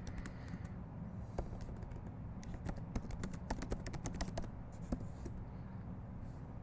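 Typing on a computer keyboard: a run of quick key clicks, densest in the middle, over a low steady hum.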